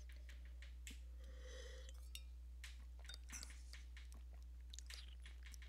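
A sip of white wine drawn from a glass about a second in, followed by soft mouth clicks and lip smacks as the wine is worked around the mouth. A steady low hum runs underneath.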